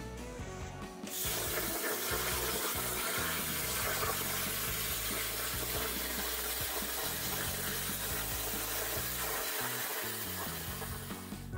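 Plasma cutter arc hissing steadily as the CNC torch cuts 16-gauge stainless steel sheet. It starts about a second in and stops near the end. Background music plays faintly underneath.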